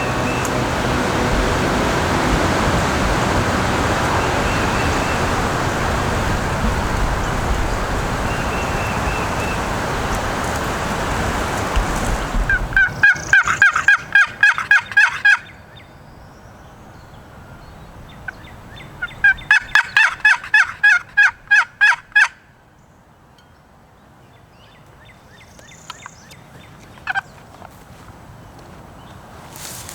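Steady vehicle and road noise, then two loud runs of turkey yelping, each about nine quick, evenly spaced notes lasting roughly three seconds, the first about halfway through and the second several seconds later.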